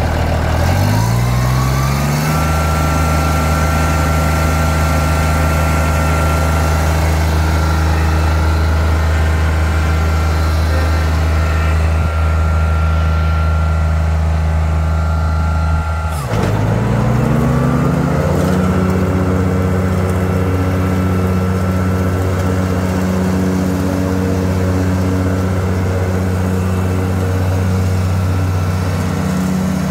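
John Deere Z994R zero-turn mower's diesel engine, just started, rising in revs over the first two seconds and then running steadily as the mower drives across the grass. About sixteen seconds in the revs dip sharply and climb back within a couple of seconds, then it runs steadily again.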